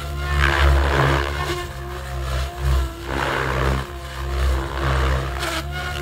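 Electric SAB Piuma RC helicopter with a Pyro 700 motor flying: a steady low rotor drone at about 2000 rpm headspeed, with swelling whooshes of blade noise every second or so as it manoeuvres.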